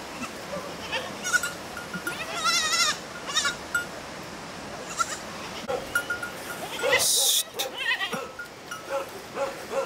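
Domestic goats bleating as the herd walks, one giving a quavering, wavering bleat about two and a half seconds in, with shorter calls around it. A short loud burst of noise comes about seven seconds in.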